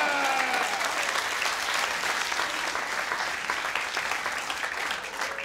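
Audience applauding, the clapping gradually easing off. In the first second the tail of a man's long, drawn-out shout, falling in pitch, fades out under it.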